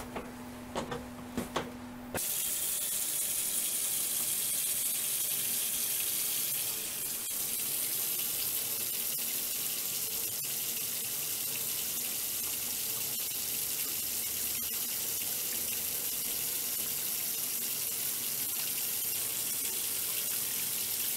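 Water running steadily from a tap into a sink, starting suddenly about two seconds in. Before it, a few light clicks over a faint hum.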